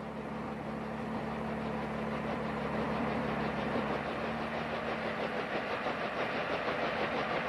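Bell H-13 helicopter's piston engine and rotor running steadily in low flight, with a fast even pulsing; it slowly grows louder over the first few seconds as the helicopter comes closer.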